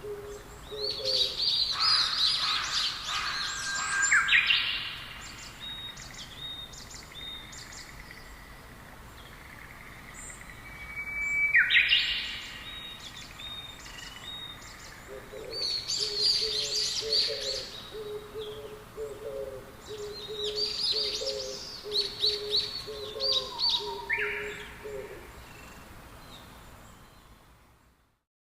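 Songbirds chirping and trilling in several bursts, with a lower call of short notes repeated quickly through the second half. It fades out near the end.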